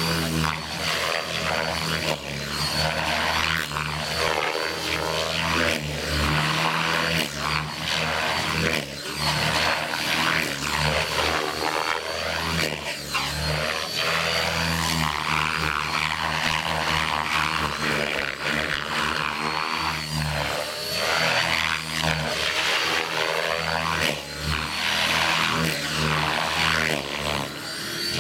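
Align T-Rex 600 EFL Pro electric RC helicopter in flight: the main rotor blades swishing over the whine of the electric motor and gears, swelling and fading again and again as it swoops close and away.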